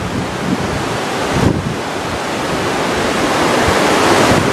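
Muddy floodwater of a flooded desert wadi rushing fast past a concrete bridge, a steady noisy rush that grows a little louder near the end, with wind buffeting the microphone.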